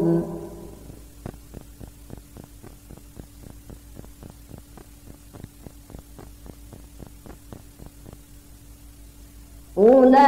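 Faint steady electrical hum with a low steady tone and about four soft ticks a second, the background noise of an old recording in a pause of a Quran recitation. The reciter's long sung note fades with a short echo at the start, and a new sung phrase starts loudly near the end.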